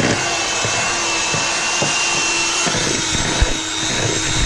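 Electric hand mixer running steadily with a motor whine, its beaters whisking cake batter in a plastic bowl and knocking against the bowl now and then, with one sharper knock about three and a half seconds in.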